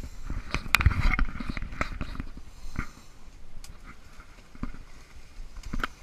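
Leaves and branches rustling and scraping as someone pushes through dense bushes, with irregular knocks and thumps of footsteps and handling noise on the camera, busiest in the first two seconds and again near the end.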